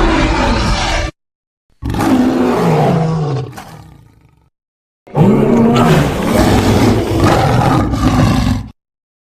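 Dinosaur roar sound effects made for a Gorgosaurus, three roars separated by dead silence. The first ends about a second in, the second fades out, and the third starts about five seconds in and cuts off abruptly.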